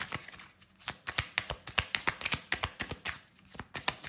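A deck of oracle cards shuffled by hand: a quick run of crisp papery flicks and slaps, with a brief pause about half a second in.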